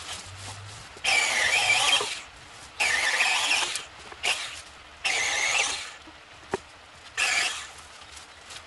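OSUKA OCMC-6S1 cordless battery mini chainsaw run in four short bursts of about a second each, its chain cutting through branches.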